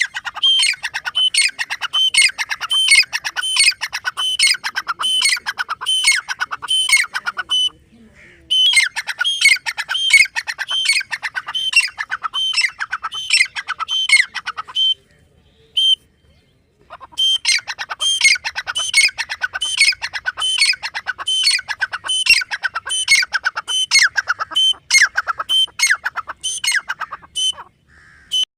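Grey francolin calling: fast runs of loud, harsh repeated notes in three long bouts, with short breaks about eight seconds in and again around fifteen seconds.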